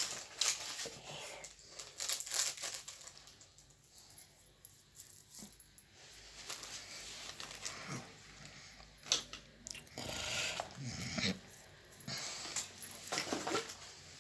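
Scattered light clicks and rustles of small plastic toy pieces and packaging being handled. About ten seconds in there is a short, fuller, lower sound.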